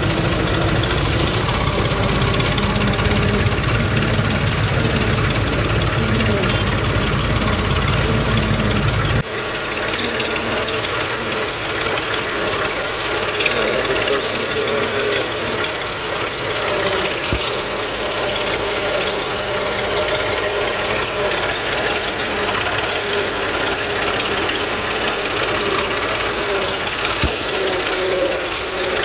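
Massey Ferguson 240 tractor's three-cylinder diesel engine running steadily as it drives. A deep low rumble under the engine note cuts off abruptly about nine seconds in.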